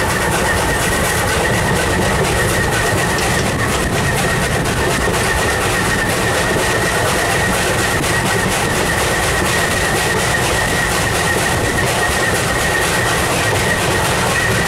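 Steam train hauled by NZR Ww-class tank locomotive 644 running along the line, heard from the open balcony of a wooden carriage: a loud, steady rumble and rattle of wheels on rail, with a steady high squeal over it.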